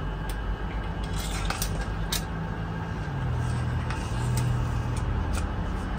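A low steady motor hum, like a vehicle engine running, dropping slightly in pitch about halfway through, with a few light clicks and clinks.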